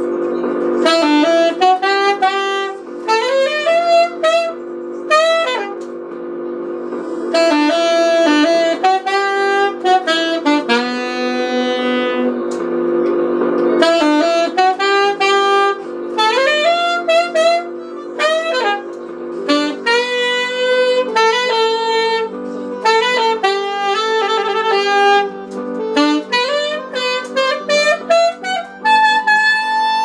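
Alto saxophone playing a slow, smooth-jazz ballad melody with runs and pitch bends over a backing track of sustained keyboard chords. The chords change about two-thirds of the way through.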